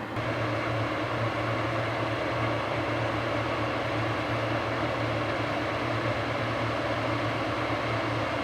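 Large diesel farm machinery running steadily under load, a constant low engine hum with a dense mechanical rush over it.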